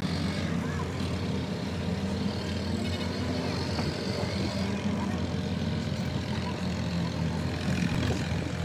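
An engine running steadily, a low, even drone with no change in pitch.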